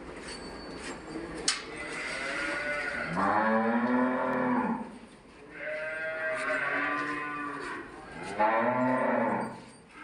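Dairy cows mooing: about four long calls one after another, with a couple of sharp clicks among them.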